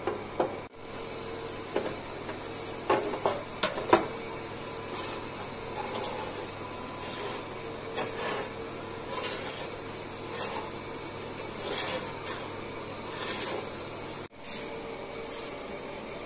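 Belt grinder running steadily while a hardened steel knife blank, held in a bevel jig, is drawn across the abrasive belt in repeated rasping passes about once a second, grinding the bevel on the blade's second side. A few sharp knocks of the jig come in the first few seconds.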